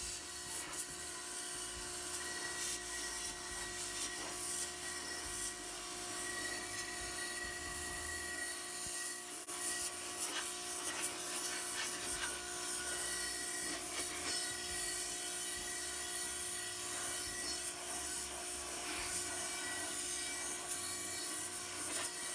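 Pressure washer with a siphon-feed sandblasting attachment blasting a steel wheel with water and sand to strip the old paint. A steady hissing spray with the even hum of the washer's motor and pump under it.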